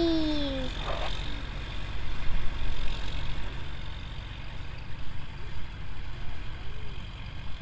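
John Deere four-wheel-drive tractor's diesel engine running steadily as it tows a tipper truck out of the sand. A child's falling cheer trails off at the very start.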